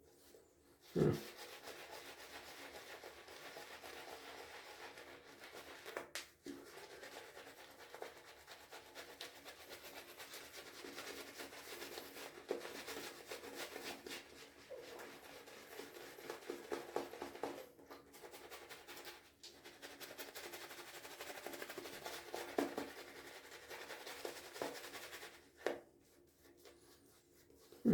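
Shaving brush with a 26 mm Timberwolf knot working freshly wetted shaving soap into lather, a steady wet rubbing and swishing with stronger strokes here and there. It stops about two seconds before the end.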